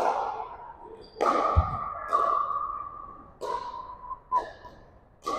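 Pickleball rally: paddles pop the hollow plastic ball about once a second, five hits in all, each ringing on in the gym's echo. A low thud comes about one and a half seconds in.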